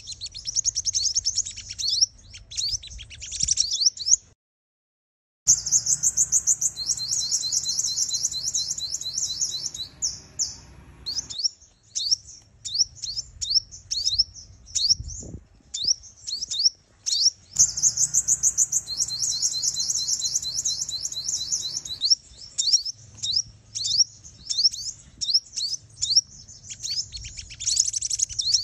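Female sunbird calling in fast runs of high, thin chirps and trills, in repeated bursts with a brief silent break about four seconds in. It is a decoy call meant to excite and draw in male sunbirds.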